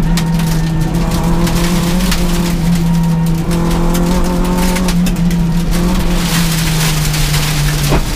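Peugeot 106 S16 rally car's four-cylinder engine running hard at high, fairly steady revs, heard from inside the cabin, with a short break in the note near the end as the driver changes gear.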